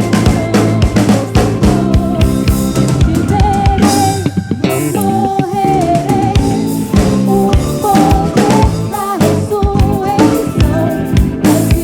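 Live soul band playing: a drum kit with snare and bass drum keeping a steady beat under bass and keyboards, with a wavering lead melody line running through the middle.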